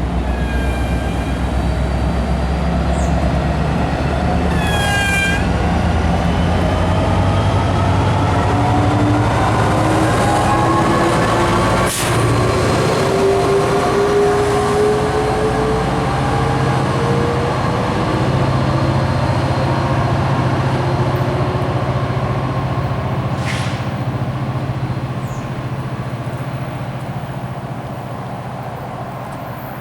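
A train passing: a steady diesel-locomotive engine drone with a slowly rising whine, short wheel squeals about a second in and around five seconds in, and a few sharp clicks, fading toward the end.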